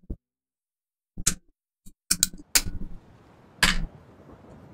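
Hard plastic LEGO Technic parts clicking and knocking as they are handled and pressed together. There are several sharp clicks, bunched around two seconds in, and the loudest, slightly longer knock comes near the end.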